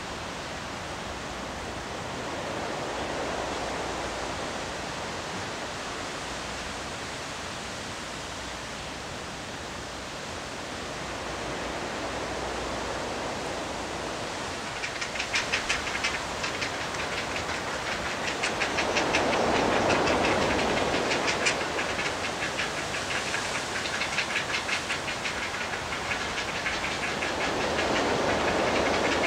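Great blue heron nestlings giving a rapid clacking, chattering call, starting about halfway through and continuing, typical of begging as an adult arrives at the nest. Underneath is a steady rush of distant surf that swells every eight seconds or so.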